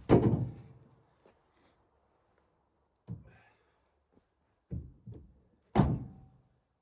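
Several heavy wooden thuds and knocks, each with a short ringing tail and near silence between them: timber being handled and set down. The loudest come right at the start and near the end.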